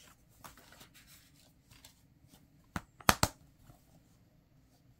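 Handling of a paper DVD booklet and a plastic DVD keep case: soft paper rustles, then about three seconds in a sharp click followed by two loud plastic clacks as the case is snapped shut.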